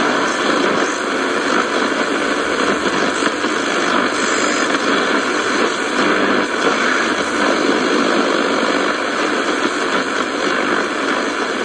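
Shortwave static hissing steadily from the loudspeaker of a Sony ICF-F12S portable radio while its analog tuning knob is worked across the band. No clear station comes through.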